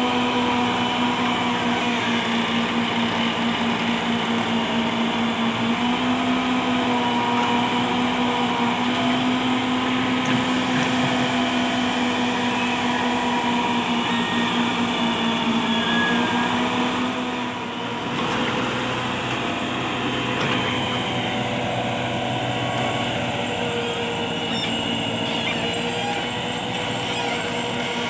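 Massey Ferguson tractor's diesel engine running steadily while it powers a tractor-mounted backhoe digging soil.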